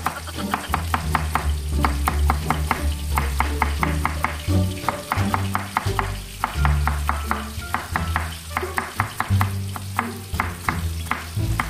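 Kitchen knife slicing peeled cucumber on a wooden chopping board: quick, even knocks about five a second, with a few short pauses. Background music with a low bass line runs underneath.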